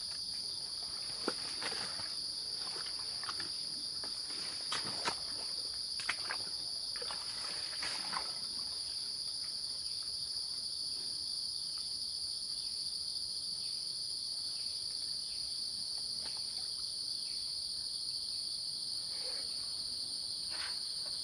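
Steady high-pitched chirring of insects, with a few faint clicks and rustles in the first eight seconds.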